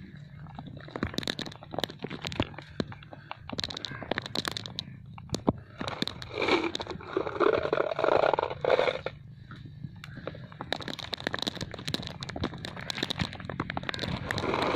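Marbles rolling down a sand track and clicking against one another as they pile up at the bottom, many sharp irregular clicks. A longer, louder scraping and crunching stretch comes about six to nine seconds in.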